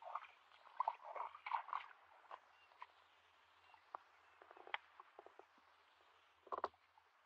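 Wet mud squelching and shallow muddy water splashing as feet wade and hands grope through the mud and weeds, in irregular bursts: a cluster in the first two seconds, scattered smaller splashes in the middle, and one sharper burst near the end.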